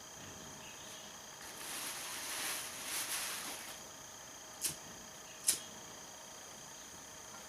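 A rustling or scraping noise for about two seconds, then two sharp clicks less than a second apart. Steady high insect chirring runs behind.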